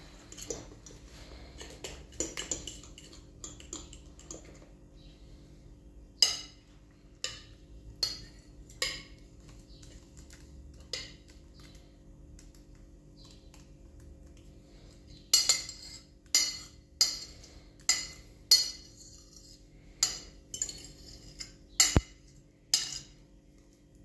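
A metal spoon clinking and scraping against a glass mixing bowl while batter is stirred and scraped out, in irregular sharp taps, with a run of louder taps about once a second in the second half.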